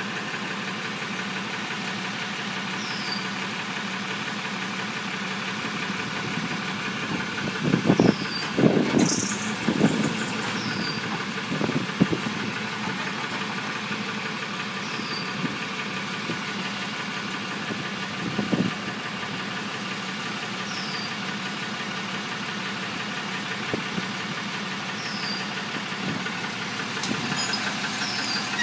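Tow truck engine idling steadily. Loud metal clanks and rattles from the towing gear come in a cluster about eight to twelve seconds in, and once more around eighteen seconds.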